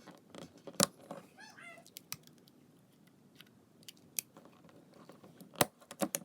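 A cut balloon's rubber being stretched over a plastic water-bottle cap filled with slime: scattered sharp snaps and clicks of rubber and plastic, the loudest about a second in and near the end.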